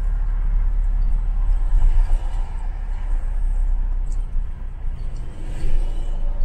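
London bus heard from inside the passenger cabin: a steady low rumble of engine and road noise, with a few faint ticks or rattles about four seconds in.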